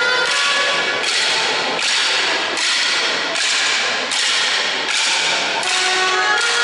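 Wooden dance sticks of paloteo dancers clacking together in a steady rhythm, about one strike every three quarters of a second. Each clack echoes in a large hard-walled hall.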